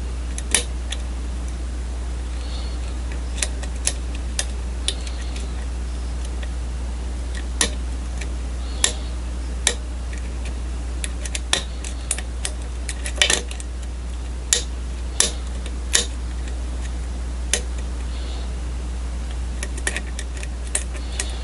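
Hook pick and tension tool working the pins of a pin-tumbler challenge lock: irregular small metallic clicks and taps, coming more often in the second half. A steady low hum runs underneath.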